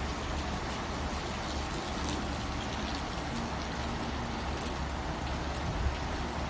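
Steady rain falling on a street, with a low steady rumble underneath.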